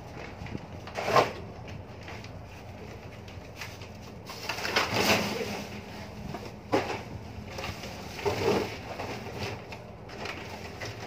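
Garbage bags being handled on a ship's deck: a few short knocks and rustles, the longest about four to five seconds in, over a steady low hum of ship machinery.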